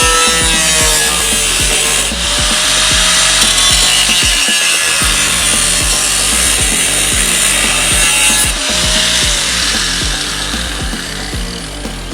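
A power tool abrading the sheet metal of a Bronco fender, giving a steady, loud hissing rasp, over background music with a steady beat. The tool noise tails off near the end.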